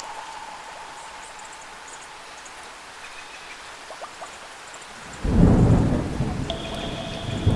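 Steady rain, then about five seconds in a sudden loud thunderclap that rolls on as a deep rumble. A few faint high tones sound over the rain.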